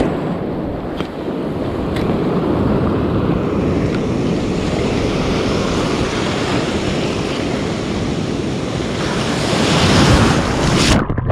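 Ocean surf rushing over a rocky tidal shelf, with wind on the microphone. A wave surges in and washes up around the shelf about ten seconds in, the loudest moment.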